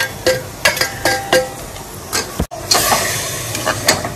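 A metal spatula scrapes and clinks against a pressure cooker as goat tripe is stirred into sizzling oil and masala, with a string of sharp clicks, some briefly ringing. The sound cuts out for an instant about two and a half seconds in, then comes back with louder sizzling and more scraping.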